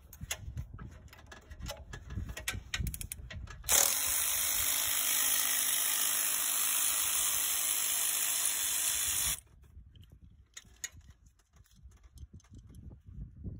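Cordless electric ratchet running steadily for about five and a half seconds on a bolt at the Northstar engine's water pump, then stopping abruptly. Before it come scattered clicks and knocks of tool handling, and a few faint clicks follow.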